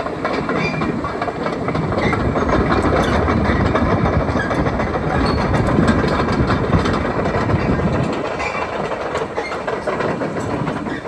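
Komatsu PC360LC-11 crawler excavator running on its diesel engine, its steel tracks clanking and rattling in a dense run of clicks and knocks, loudest in the middle.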